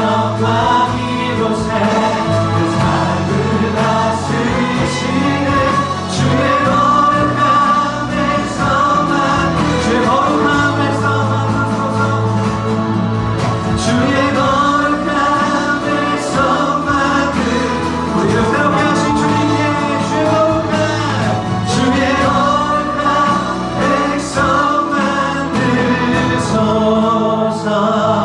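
Worship song sung by a group of voices with instrumental accompaniment.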